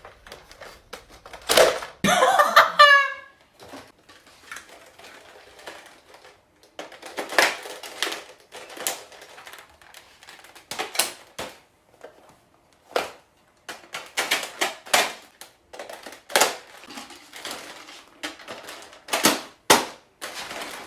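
Nerf blasters being primed and fired: an irregular string of sharp plastic clicks and clacks, with a short loud yell about two seconds in.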